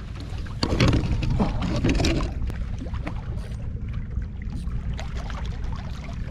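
Water sloshing and splashing, loudest for about a second and a half starting just under a second in, over a steady low rumble.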